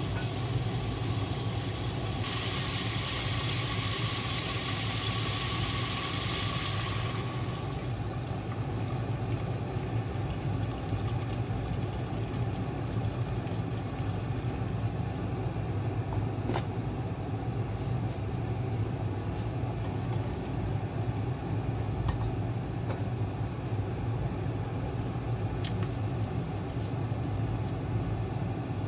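Pork belly sizzling in a stockpot, then water poured in from a ladle, over a steady low hum. A louder hiss lasts a few seconds near the start, the pouring ends about halfway, and a few light clicks follow.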